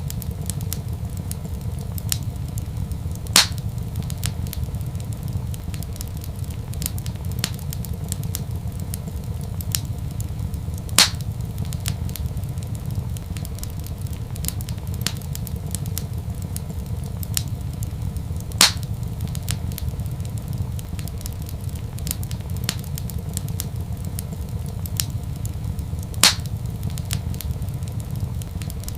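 Wood fire crackling in a fireplace: a steady low rumble under a constant scatter of small crackles, with four louder pops at even intervals of about seven and a half seconds.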